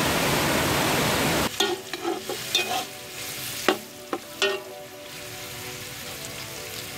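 Waterfall rushing for about the first second and a half, then cut off suddenly by sliced longaniza sausage frying in a heavy metal pot. A metal spoon stirs it, scraping and knocking against the pot several times over the next few seconds, over a steady sizzle.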